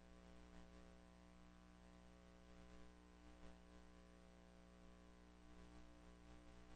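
Near silence: a faint, steady electrical hum with light tape hiss.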